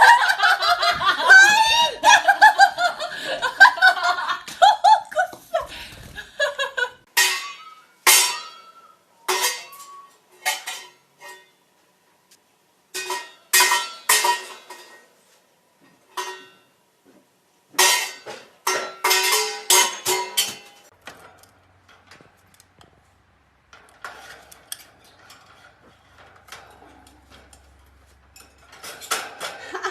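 Rapid chattering with quick up-and-down glides in pitch for about the first six seconds, then repeated sharp clinks and clatters, often in quick runs, fading to faint activity after about twenty seconds.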